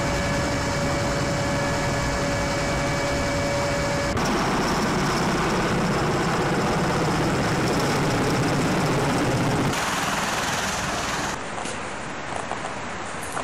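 MV-22 Osprey tiltrotor aircraft: a steady whine of several held tones over engine and rotor noise inside the cabin, giving way about four seconds in to a broader rush as the aircraft flies overhead. Near the end the aircraft noise gives way to a quieter outdoor background.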